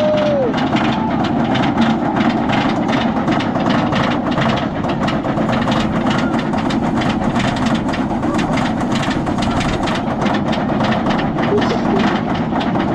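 Batman roller coaster train climbing the lift hill: a steady mechanical rumble with rapid, continuous clacking from the lift chain and anti-rollback mechanism.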